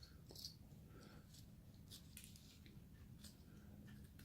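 Faint, scattered short cutting clicks of a hand carving knife slicing into basswood, over near silence.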